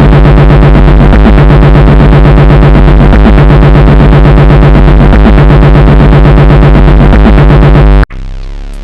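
Loud, heavily distorted electronic music with a synthesizer over a fast, steady pulse. It cuts off abruptly about eight seconds in, and a quieter, sparser piece of music begins.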